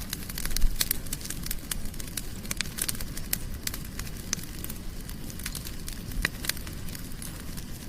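Wood fire burning, crackling with irregular sharp pops of varying loudness over a low steady rumble.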